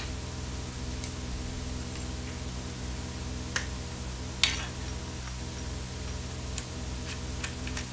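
Sharp metallic clicks and clacks of coax connectors and hardware being handled as a bulkhead connector is swapped out for a relay switch box, the loudest about halfway through and a few small ones near the end, over a steady low electrical hum.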